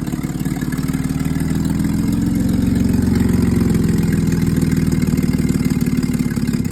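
Nissan GQ Patrol engine idling with a steady pulsing exhaust note, which swells slightly about two seconds in. The owner has found a blown exhaust gasket on it, and it is running off the second battery with the alternator not charging.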